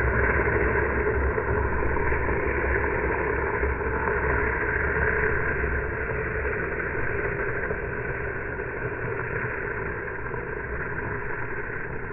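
Longboard's urethane wheels skidding across asphalt in a long hand-down slide: a steady, rough scraping noise that slowly fades as the board moves away. A low rumble under it stops about halfway through.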